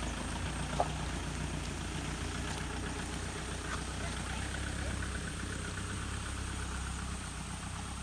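Toyota Innova's engine running at low revs as the MPV crawls slowly over wet rock, a steady low hum that eases a little near the end as it moves away. A single sharp click sounds about a second in.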